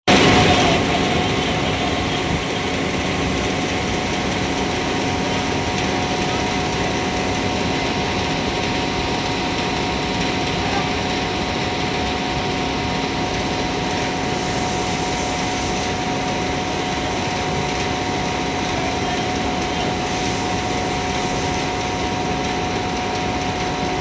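Coal-fired boiler plant machinery running: a steady mechanical rush with several constant humming tones over it, unchanging throughout.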